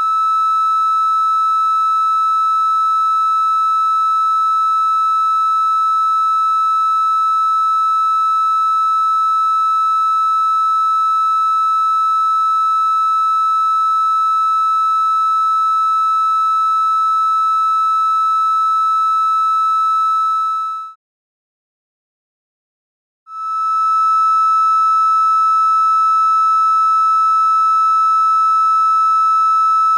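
Steady 1.31 kHz triangle-wave test tone with a series of faint overtones. It is the audio output of an HCF4069UBE CMOS inverter wired as an amplifier, mildly distorted, with its peaks slightly rounded. It cuts out for about two seconds near 21 seconds in, then returns a little louder, just above unity gain.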